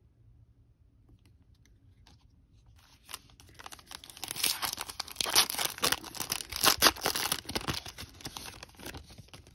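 Foil wrapper of a 2021 Donruss Optic baseball card pack being torn open and crinkled by hand. It starts after about three seconds of near quiet, is loudest in the middle and fades near the end.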